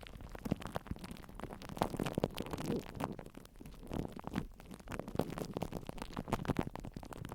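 Close-up ASMR scratching and tapping: a fast, irregular run of small taps, clicks and rustles over a low rumble.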